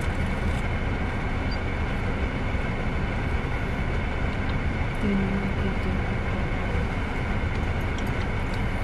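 Steady hum inside a car's cabin, from the running engine and air-conditioning fan. A brief low hummed note from the man comes about five seconds in.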